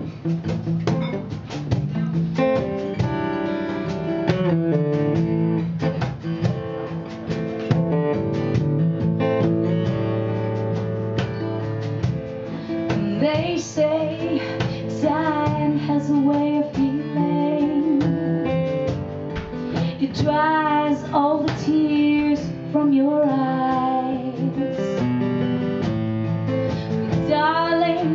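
Acoustic guitar played live, picked and strummed, with a woman's voice singing over it from about halfway through.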